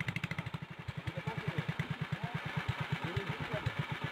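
Motorboat engine running steadily under way, a rapid even putter, over a steady hiss of water and wind.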